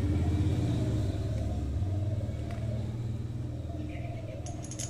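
A motor vehicle's engine running with a low rumble that slowly fades. Near the end, a few light metallic clinks.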